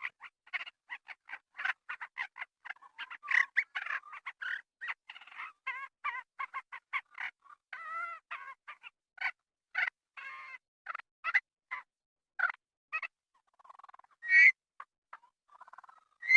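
Rapid series of short, high chirps and chips from songbird recordings (sparrows, shrike, bunting, cardinal) put together as a reconstructed Compsognathus call, at about four or five notes a second. The notes thin out near the end, broken by a louder, longer call.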